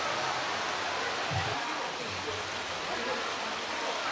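Steady rush of running water, with faint crowd chatter beneath it.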